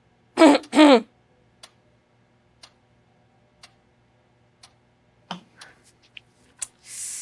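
A clock ticking about once a second in a quiet pause, after a man's short two-part "hm-hmm" hum near the start. A soft whoosh swells near the end.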